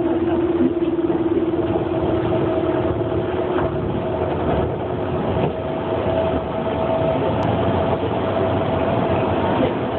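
Steady running noise heard inside a moving train carriage: a rumble with two steady hum tones, the lower one fading out about halfway through.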